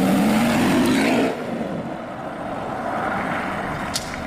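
BMW Z4 engine accelerating, its note rising. About a second in, it cuts to a quieter, steadier sound of the car driving.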